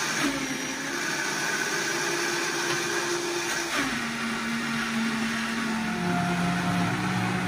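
High-powered countertop blender running, puréeing a thick avocado dressing while a tamper pushes the mixture down onto the blades. The motor's pitch drops about halfway through and shifts again near the end as the load changes.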